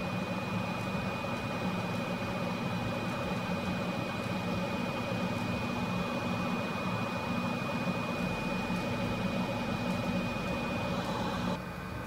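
Steady whir of a small electric fan or blower at a soldering bench, with a hum and a thin high whine; it drops away suddenly near the end.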